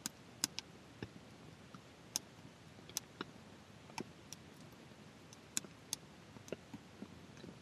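Wood fire crackling in a small metal tent stove: scattered sharp pops and clicks, a dozen or so, irregularly spaced over a faint steady hiss.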